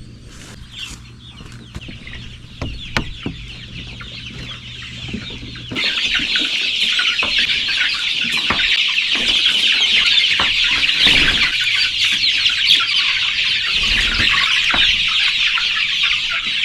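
A large flock of young chicks peeping all together, a dense high chatter that starts suddenly about six seconds in and carries on. Before that, a low steady hum with scattered knocks, and knocks keep coming through the peeping.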